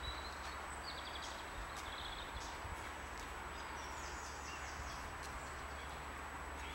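Outdoor ambience: a steady low rumble and hiss, with small birds chirping and giving short trills several times.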